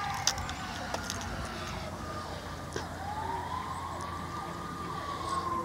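Rescue squad siren on a slow wail: the pitch falls, swings back up about three seconds in, and starts to fall again.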